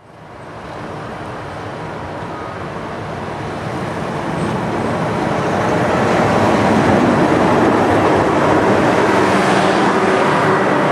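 NSW 44 class diesel-electric locomotive 4490 hauling a passenger train close past: diesel engine running and steel wheels rolling over the rails, the sound fading in from silence and growing louder over the first several seconds, then steady as the carriages roll by.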